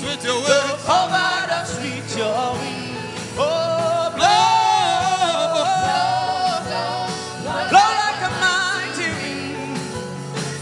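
Gospel worship singing: a voice holding long, sliding phrases over a soft instrumental backing with a steady beat.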